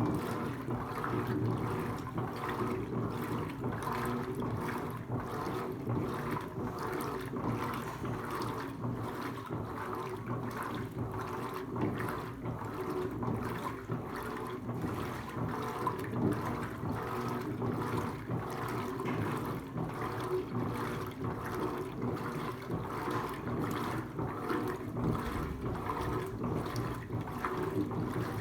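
Electrolux Turbo LTC15 top-loading washing machine running its wash, with water churning and sloshing in the tub over a steady low hum.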